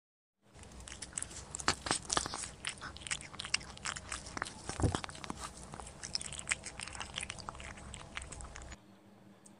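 A cat chewing dry biscuit pieces: a quick, irregular run of crisp crunches and clicks that starts about half a second in, with one duller thump about halfway and a short lull near the end.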